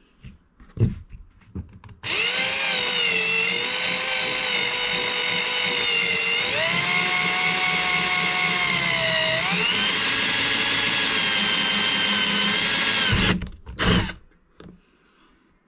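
Power drill with a twist bit drilling a hole through a plastic kayak deck: the motor starts about two seconds in with a steady whine, steps up in pitch twice and stops sharply about thirteen seconds in, followed by a few knocks.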